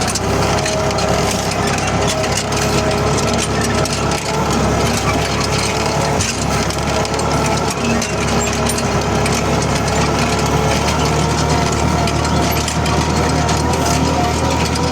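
New Holland TD4.100F tractor engine running steadily while it pulls an 11-tine cultivator through the soil.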